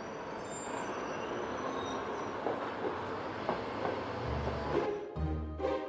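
A steady, even rush of background noise with a few faint high whistling glides near the start. About five seconds in it cuts off and music begins, with repeating low bass notes.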